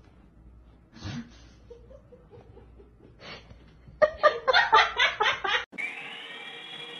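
A person chuckling briefly, then laughing in a rapid run of bursts for about a second and a half. Near the end the laughter cuts off and a steady high whine of a small toy helicopter's motor begins.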